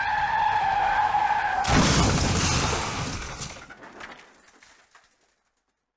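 Car crash sound effect: tyres screeching in a steady squeal, cut off about a second and a half in by a loud crash with shattering glass that dies away over about three seconds.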